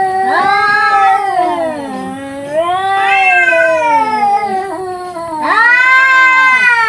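Two domestic cats yowling at each other in a standoff: long, drawn-out caterwauls that waver up and down in pitch and overlap, dipping briefly about two seconds in and again near the five-second mark before a fresh, loud yowl begins.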